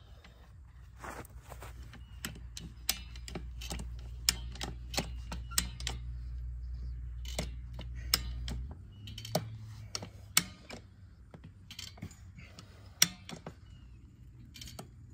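Hand-cranked barbed-wire fence stretcher ratcheting: irregular sharp clicks, about one or two a second, as the handle is worked and the strand is drawn tight.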